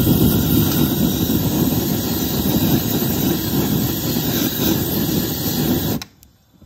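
GrillBlazer Grill Gun propane torch running with a steady jet-like rush, blasting flame into the charcoal in a kamado firebox to light it. It cuts off suddenly near the end.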